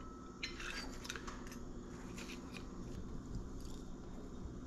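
Faint, scattered clicks and light scrapes of a metal fork against a plate as a bite of crab cake is cut, most of them in the first half.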